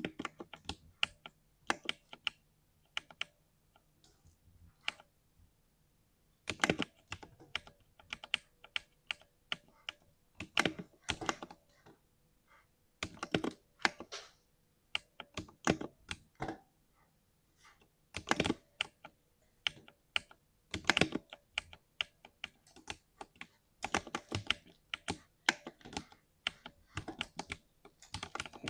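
Typing on a compact RGB mechanical keyboard, with key strokes coming in quick runs broken by short pauses and a few louder single strokes. The keyboard has a smooth, thocky sound.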